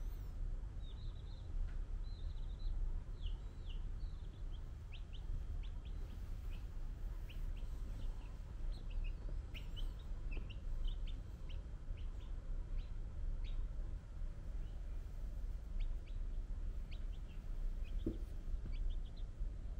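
Baby chick peeping: short, high peeps that fall in pitch, repeated irregularly throughout, over a steady low rumble.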